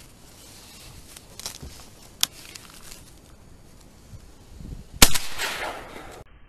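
A shotgun shot about five seconds in, a single loud report that trails off over about a second. A shorter, sharper crack comes a couple of seconds before it.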